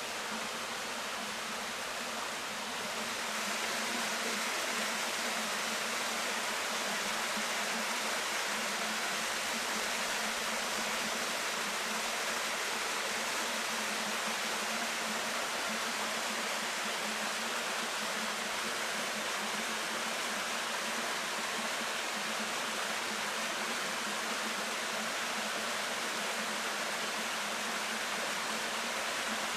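Waterfall: a steady rush of falling water, growing a little louder about three seconds in and then holding even.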